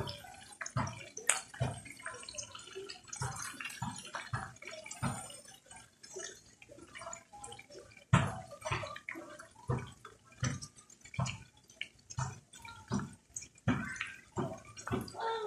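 Chorizo sausages frying in hot oil in a pan, sizzling with irregular pops and crackles, several a second.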